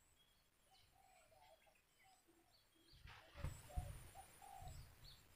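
Faint bird calls: scattered short high chirps and short lower repeated notes. About three and a half seconds in, a brief rustle with a couple of low thumps is the loudest sound.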